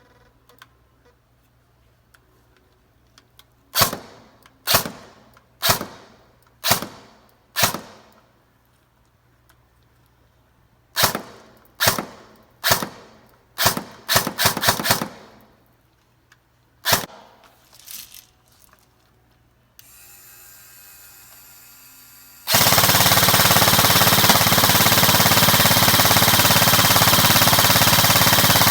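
E&C M4 R.I.S. Advanced airsoft electric gun firing single shots, about one a second, five in a row and then another series that closes with a quick cluster of several shots. About two-thirds of the way in, a loud continuous sound starts and runs on.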